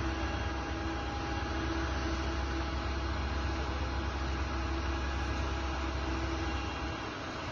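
Steady low rumble of a heavy truck engine running, with a constant hum over it.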